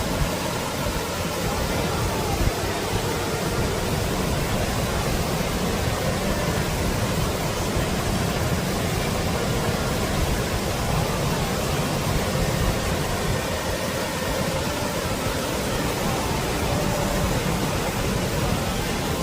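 Waterfall rushing: a steady, even noise of falling water that holds at one level throughout.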